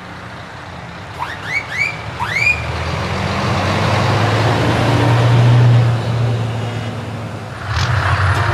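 Low, steady engine hum of a heavy vehicle, swelling to its loudest about two-thirds of the way through, preceded by three quick rising chirps about a second in. A hiss comes in near the end.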